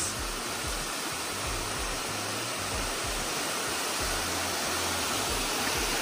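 Steady rushing of a small waterfall cascading down over rock slabs.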